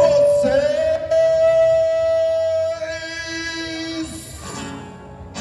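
A voice amplified through a microphone singing one long held note that rises slightly about a second in, then a lower held note, fading out about four seconds in.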